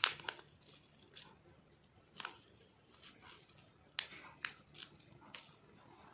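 A sachet of instant kadha powder crinkling and rustling as it is handled and tipped into a spoon, in a series of soft, short crackles and light ticks, most of them a little past the middle.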